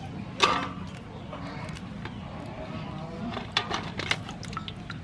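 Raw blue crabs being cleaned with kitchen scissors and by hand: a loud crunch of shell about half a second in, then a quick run of short snips and clicks near the end, over a steady low hum.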